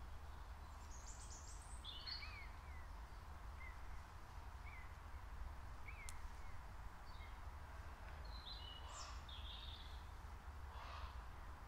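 Faint birdsong: scattered short chirps and calls, some higher trills, over a steady low rumble.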